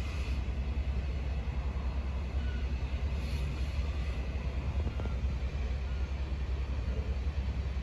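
Low, steady rumble of a distant Airbus A330-300 jet airliner high overhead, with wind buffeting the microphone.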